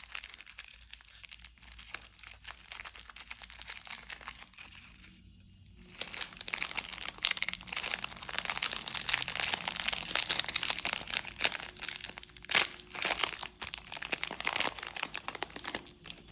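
Plastic candy wrappers crinkling as they are handled and unwrapped: a steady crackle, softer at first, a brief pause, then louder and busier from about six seconds on.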